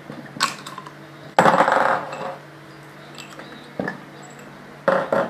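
Metal clinks and clanks of hand tools and parts against a Caterpillar 3412 diesel pump's housing during hand repair. A short clink comes about half a second in, and a louder ringing clank follows around a second and a half in. Two more clinks come near the end.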